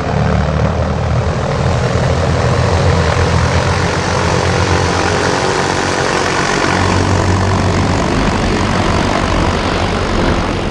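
An engine running steadily with a low drone.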